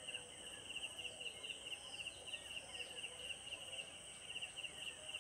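Faint background insect chirring: a steady, high-pitched, rapidly pulsing trill over low hiss.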